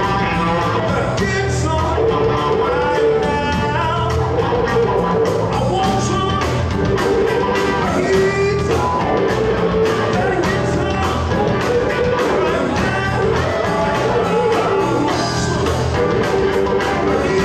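Live blues band playing: electric guitars, bass guitar and drums, with a steady beat of cymbal strokes.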